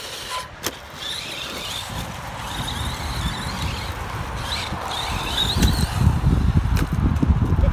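Electric RC monster truck driving on dirt: the motor's high whine rises and falls with the throttle. Low rumble of tyres on loose ground grows louder over the last couple of seconds, with a few sharp clicks.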